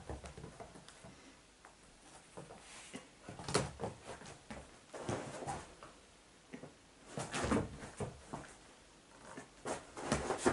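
A pet scrabbling and pawing at its squeaky playthings, heard as irregular short bursts of rustling and clatter with pauses between.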